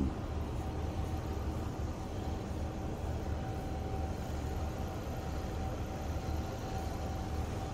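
An engine idling steadily: a low, even rumble with a faint constant whine above it.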